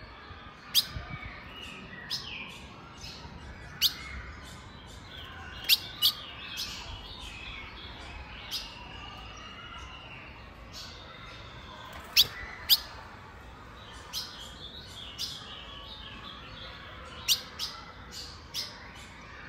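Caged female Colombian azulão (grosbeak) calling: sharp, short chip notes at irregular intervals, several of them loud, with softer warbled singing notes between them.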